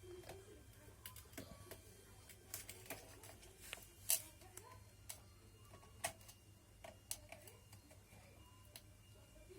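Scattered light clicks and taps, irregular and a few each second, from handling the plastic parts and controls of a Brother JV1400 sewing machine.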